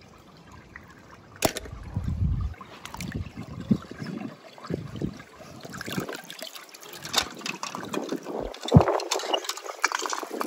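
Water splashing and trickling, with irregular small clicks and knocks and a sharper knock near the end.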